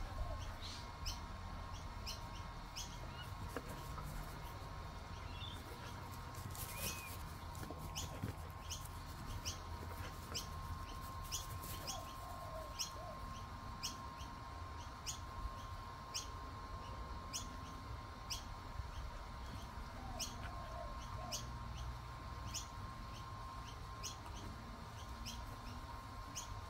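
Battery-powered bubble machine running: a steady motor whine with a sharp tick repeating evenly a little more than once a second as its wand wheel turns. Birds chirp faintly now and then.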